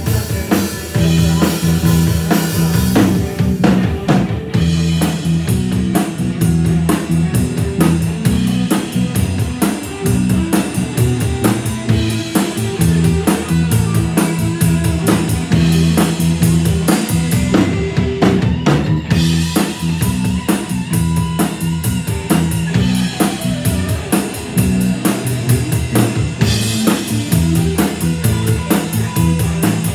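Live rock band playing, a drum kit keeping a steady beat under sustained bass notes.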